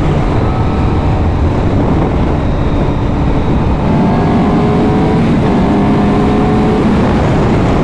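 Honda CBR1000RR Fireblade's 999 cc inline-four engine running under load while the bike is ridden, its note climbing slowly, with a brief break a little after five seconds.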